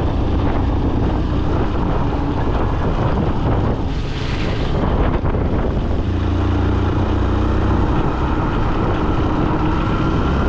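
A motor vehicle's engine running steadily, with wind rushing over the microphone; the engine note grows stronger about six seconds in.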